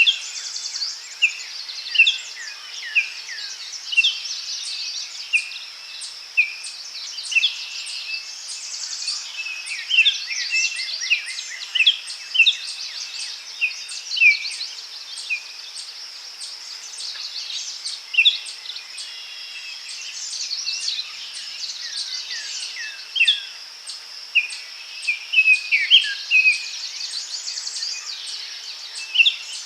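Forest birds singing, with many short chirps and quick falling notes, over a steady high-pitched insect drone with a faint regular ticking.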